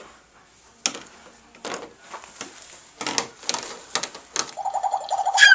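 Plastic toy pots, pans and lids knocking and clattering on a toy kitchen stove, several separate knocks. Near the end a high, rapidly pulsing tone comes in, then a loud tone that slides down in pitch.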